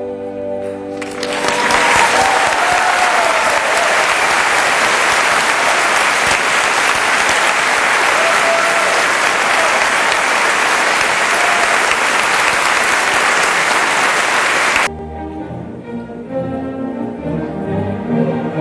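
Theatre audience applauding after a ballet pas de deux section, starting about a second in as the music ends and stopping abruptly after about fourteen seconds. Orchestral ballet music starts again near the end.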